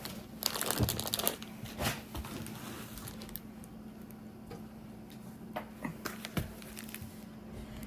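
Rustling and crinkling of plastic mail packaging and clothing being handled, in short bursts near the start and again past the middle, over a faint steady hum.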